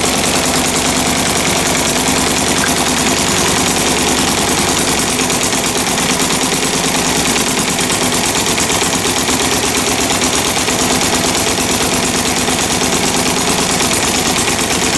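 Stuart Sandhurst model gas engine running steadily on gasoline, firing in a rapid, even stream of sharp exhaust pops.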